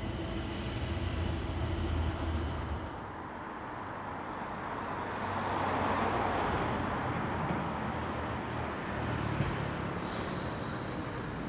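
City traffic noise: a steady low vehicle rumble, then a swelling rush of noise that peaks about halfway through and eases off, as of a vehicle passing close by.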